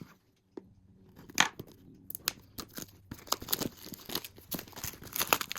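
Plastic shrink-wrap being torn and pulled off a product box: irregular crinkling and sharp snapping clicks, starting about half a second in.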